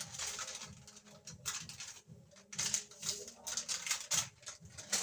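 Powder shaken from a small cardboard carton into a pot, a series of short, irregular hissing rattles.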